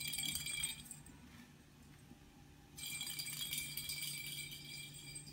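A small bell jingling as a kitten plays: a short burst at the start and a longer run of jingling about three seconds in, over a steady low hum.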